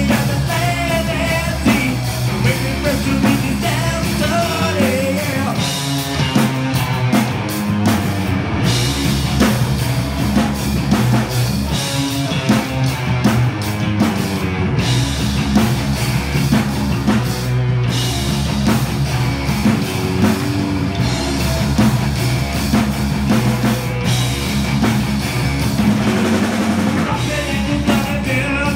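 Live rock band playing: a drum kit, electric guitar and electric bass with a singer's voice over them.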